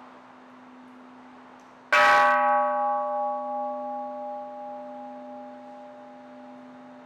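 Hanging Buddhist temple bell struck once with a wooden mallet about two seconds in: a sharp strike, then a ringing tone that pulses as it slowly fades. A faint steady low hum runs underneath.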